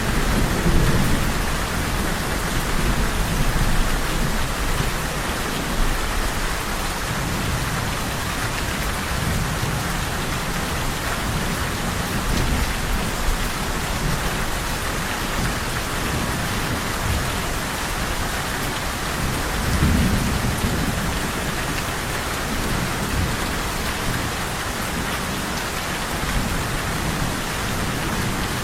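Steady, continuous rain falling, with low rumbles of thunder in the first few seconds and again about two-thirds of the way through.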